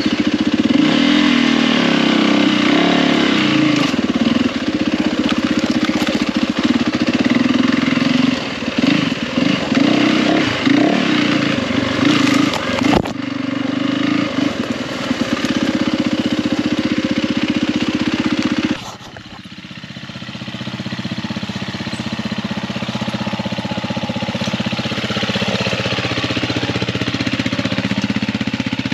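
Yamaha WR450F single-cylinder four-stroke dirt bike engine running under load on a rocky climb, the throttle rising and falling. About two-thirds through the sound drops suddenly to a quieter four-stroke dirt bike engine, a KTM 350, that builds steadily as it climbs.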